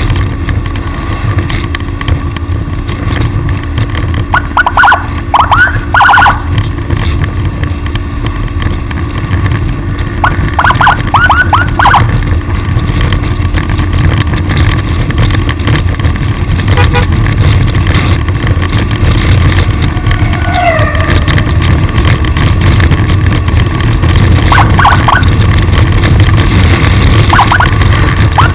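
Wind and road noise from a moving vehicle, broken by short bursts of a yelping escort siren: rapid rising chirps in four quick groups spaced several seconds apart.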